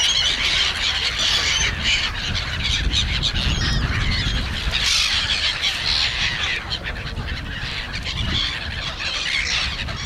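A large flock of black-headed gulls calling all at once, an unbroken chorus of short, harsh squawks overlapping one another.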